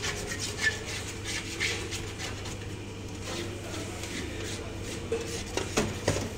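Metal baking trays and sponge cake sheets handled on a stainless steel table: light rubbing and knocks, with a few sharp clicks near the end, over a steady low hum.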